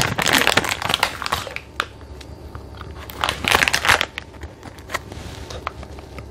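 A foil-lined plastic snack wrapper crinkling as it is opened and handled. The crinkling is dense for the first second and a half, comes again louder about three to four seconds in, then thins to a few light crackles.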